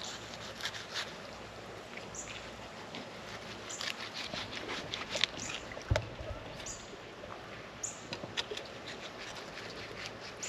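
Faint ticks and scrapes of a fillet knife cutting a mangrove snapper fillet on a concrete table, over short high bird chirps that recur every second or two. A single knock sounds about six seconds in.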